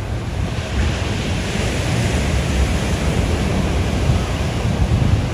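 Ocean surf breaking and washing up on a sandy beach, a steady rush that swells about two seconds in, with wind rumbling on the microphone underneath.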